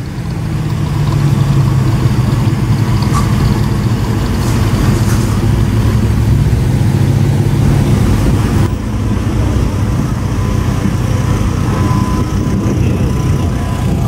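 Classic car engines running as the cars drive slowly past, with a steady low rumble. About nine seconds in the sound changes abruptly to another vehicle's engine.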